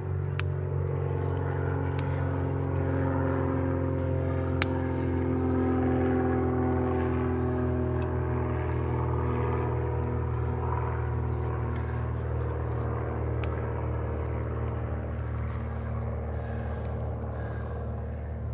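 Steady low drone of a distant engine, its pitch slowly falling over several seconds, with a few sharp clicks scattered through it.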